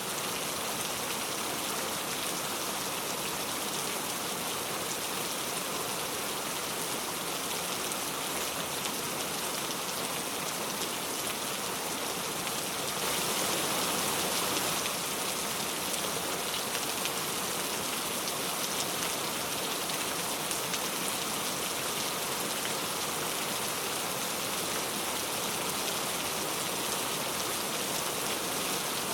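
Heavy rain falling steadily on a road, a dense even hiss with no thunder. It swells slightly for a couple of seconds about halfway through.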